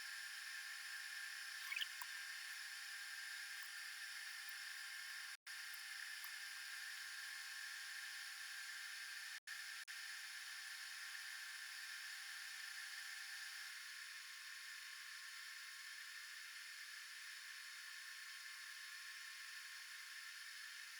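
Faint steady whir and hiss of shop machinery: the rod-turning motor spinning the freshly epoxied rod, with the air conditioner running. A thin steady tone in it stops about fourteen seconds in, and the sound drops out twice for an instant.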